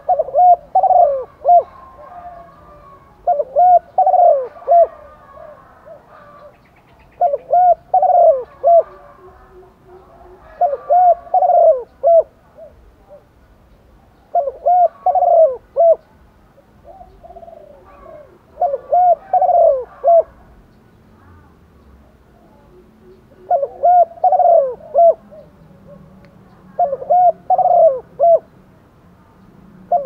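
Female spotted dove cooing: a phrase of several short, looping hoots repeated about every three to four seconds. It is a hen's call to draw males.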